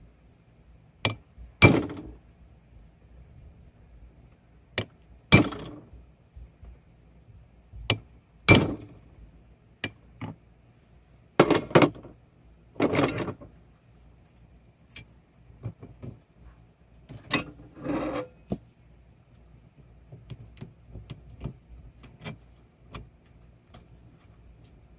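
Hand hammer striking an eye punch into a hot railroad spike on an anvil: about a dozen metallic blows a few seconds apart, each heavier blow often preceded by a lighter tap, some ringing briefly. The blows stop in the last few seconds, leaving only faint clinks.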